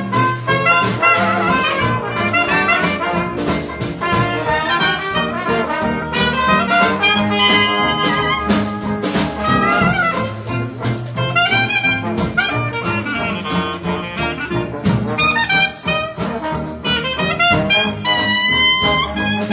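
New Orleans-style traditional jazz band playing: trumpet, clarinet and trombone weaving lines together over banjo, piano, string bass and drums.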